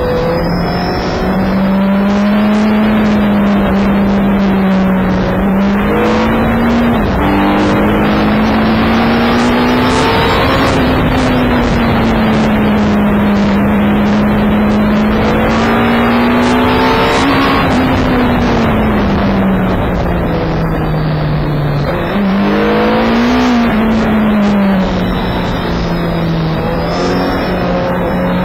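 BMW K1200S sport bike's inline-four engine heard from on the bike at speed. Its pitch rises and falls with the throttle, with a few sudden steps at gear changes, over heavy wind rush on the microphone.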